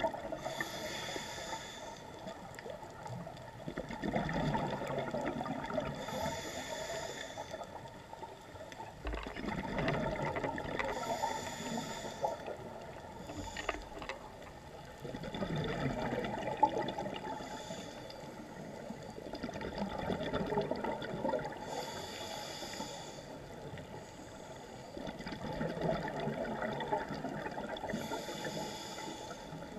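Scuba diver breathing through a regulator, recorded underwater: a short hissing inhalation roughly every five to six seconds, each followed by a longer low gurgle of exhaled bubbles.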